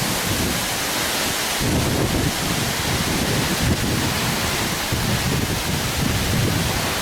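Waterfall roaring, a steady rush of falling water, with a low uneven rumble joining about a second and a half in.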